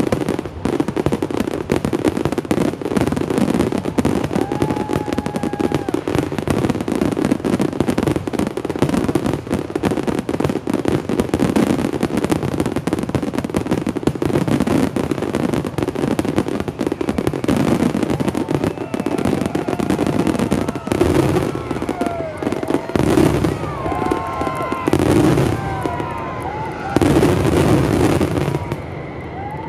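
Grand-finale fireworks barrage: a dense, unbroken stream of bangs and crackling from aerial shells. From about two-thirds of the way through, a crowd's shouts and cheers rise over it, and a few heavy bangs come near the end.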